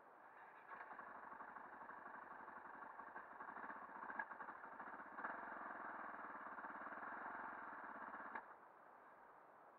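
KTM 400 enduro's single-cylinder engine running at low revs with an even pulse. It runs a little louder from about five seconds in, then drops back sharply near the end.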